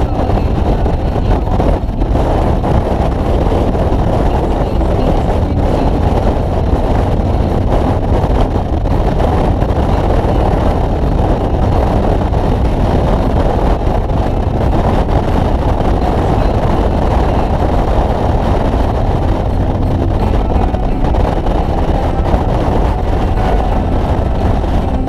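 Harley-Davidson touring motorcycle cruising at a steady speed, its engine running under a constant rush of wind and road noise.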